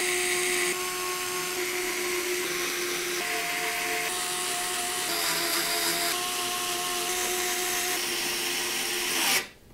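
Small electric screwdriver whirring as it drives screws through a radiator bracket into an AIO radiator, its pitch stepping up or down several times, then cutting off suddenly about nine and a half seconds in.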